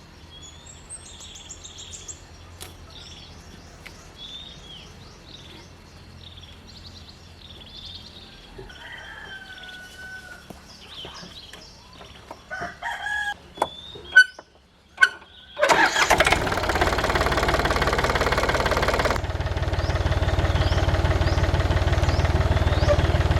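Birds chirping over a low hum, then a few clatters and a knock, and a tractor engine starts about two-thirds of the way through and keeps running loudly with an even pulse, its note shifting slightly a few seconds later.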